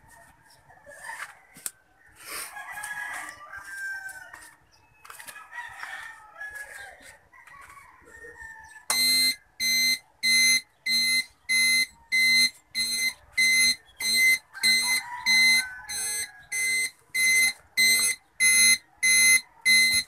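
Chickens clucking, then from about nine seconds in a motorcycle turn-signal beeper sounding in time with the flasher relay. The beeps are a loud high pitched tone, about three every two seconds: the signal flasher and beeper are working.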